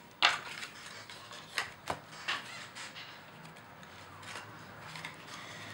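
Playing cards being handled: a handful of short, sharp clicks and taps, the loudest just after the start and a few fainter ones through the rest.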